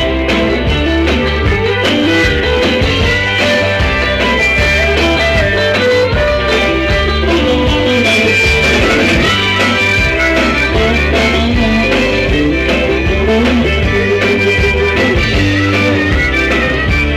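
Rock band playing live, loud: electric guitars, bass and drums, recorded on a mobile phone's microphone.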